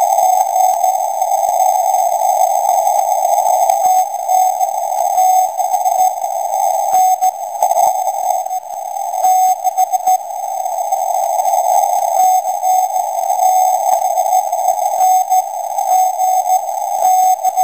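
Shortwave receiver audio of the Skanti Marinetta emergency transmitter's Morse (A1A) signal on 8 MHz: steady hiss squeezed through a narrow CW filter, with a Morse tone breaking through it in short dashes now and then and light static crackle.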